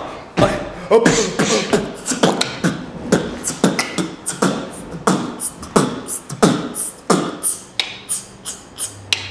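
A man beatboxing: a quick, steady rhythm of mouth-made drum sounds, about two or three hits a second, with short voiced sounds between them.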